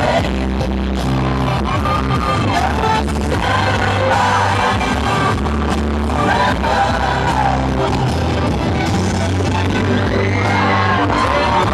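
Loud pop music with long held bass notes and a gliding voice line, played over a sound system.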